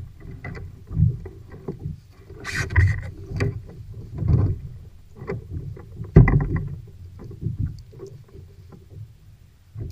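Water slapping and splashing against a kayak hull, with irregular bumps and knocks. A louder splash or knock comes about two and a half seconds in, and another about six seconds in.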